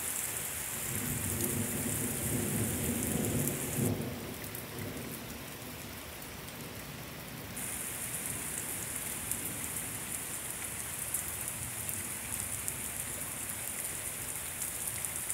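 Heavy rain pouring steadily, with a low rumble of thunder over the first few seconds that cuts off about four seconds in.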